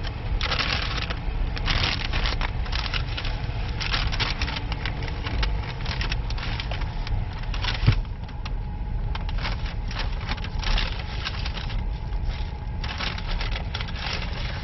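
Inside a car: a steady low engine and road rumble, with irregular short bursts of crackling hiss and one sharp click about eight seconds in.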